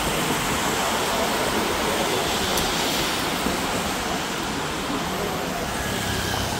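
Steady, even rushing hiss of wet outdoor street noise, with no distinct thunderclap or other single event standing out.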